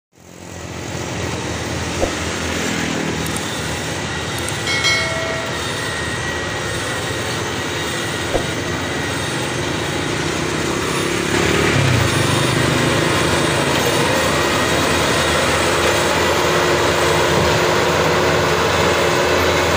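Maxxi Bimo 102 crawler combine harvester's diesel engine running steadily as the machine drives across the rice field. It gets louder a little past halfway as it comes closer.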